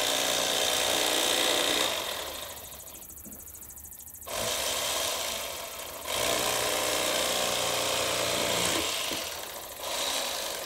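Bubba electric fillet knife running in bursts, its reciprocating blades buzzing as they cut perch fillets off the skin. The buzz drops away for about two seconds after the first burst, then runs again with short dips.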